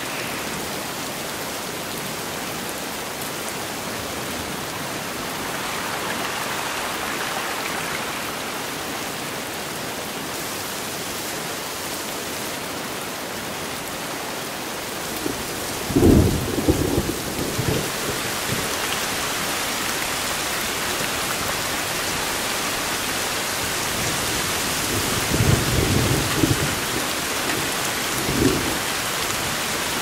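Heavy monsoon rain pouring steadily onto forest foliage. Sudden low claps of thunder come about halfway through, the loudest moment, and again a few times near the end.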